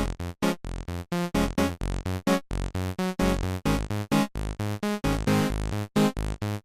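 Upbeat electronic background music with synthesizer notes over a steady drum-machine beat.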